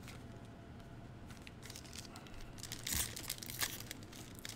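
Foil trading-card pack wrapper crinkling in short bursts as it is handled and torn open by hand, starting a little past halfway.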